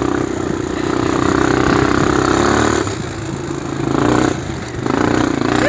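The engine of an open off-road vehicle running as it drives over sand dunes, with wind rushing over the microphone. The engine eases off about three seconds in, drops again briefly past the four-second mark, then picks back up near the end.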